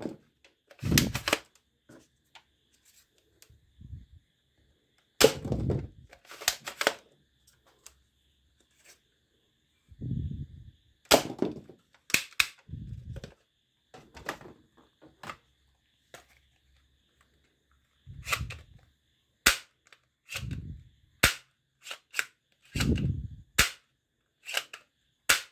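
Plastic toy dart blasters being handled and worked: irregular sharp plastic clicks and clacks, some with duller knocks, spaced out with short quiet gaps.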